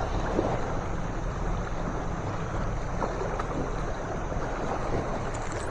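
Steady outdoor rush of wind on the microphone and flowing river water around the boat, with no distinct events.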